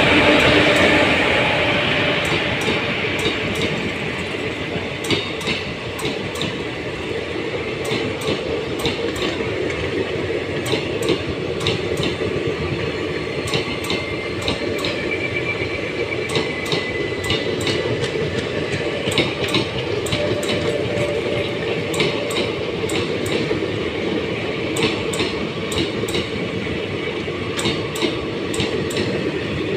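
Passenger train's coaches passing close by at speed: a steady rumble with the clatter of wheels over rail joints, loudest in the first second or so as the electric locomotive goes by.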